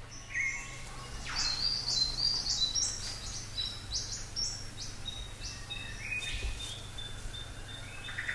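Forest birds calling: a dense, overlapping string of short, high chirps and whistles.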